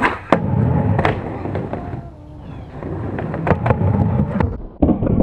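Skateboard landing with a sharp clack about a third of a second in, then its wheels rolling with a rough rumble over coarse pavement. The rumble dies down around two seconds in and builds again as it rolls, and another clack of the board on the ground comes near the end.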